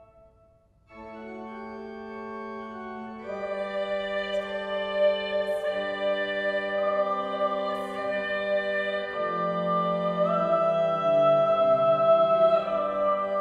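Pipe organ playing slow, sustained chords. It starts again after a brief silence about a second in, then grows louder and moves through several chord changes.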